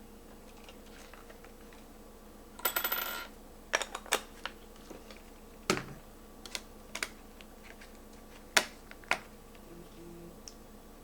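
Sharp clicks and a short rattle of small hard parts being handled on a DSLR camera body while a focusing screen is fitted. A dense clatter lasts about half a second, then single clicks follow at uneven gaps, the loudest about two-thirds of the way through.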